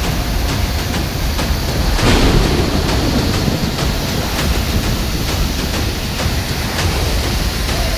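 Flooded mountain river in spate, muddy water rushing over boulders: a loud, steady rush of water with a heavy low rumble.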